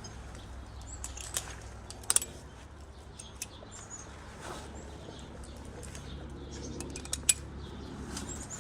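A few sharp clicks, the loudest about two seconds in and again near the end, over faint high bird chirps and a low steady hum.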